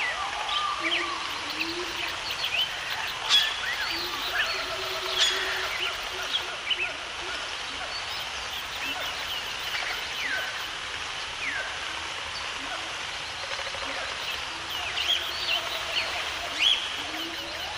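A chorus of wild birds: many short chirps and quick rising and falling calls from several birds, with some lower drawn-out calls, over a steady background hiss.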